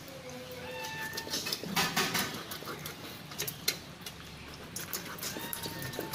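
Wet squelching and tearing as hands pull the gills and innards out of a large scaled fish, with scattered clicks. A few short whistling calls sound in the background, about a second in and again near the end.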